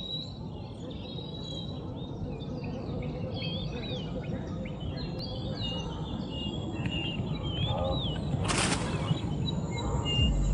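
Savanna ambience: several birds chirping with short, rising and falling notes over a steady low background noise. A brief rasping burst comes about two seconds before the end.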